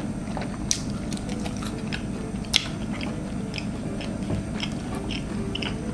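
Close-miked mouth sounds of someone biting and chewing fried snack bites pulled from a skewer: soft wet chewing with scattered short smacks and clicks, several a second.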